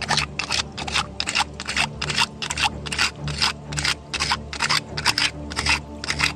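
Metal tweezers tapping and scraping against stones in a shallow stream: a quick, irregular run of sharp clicks, about three or four a second.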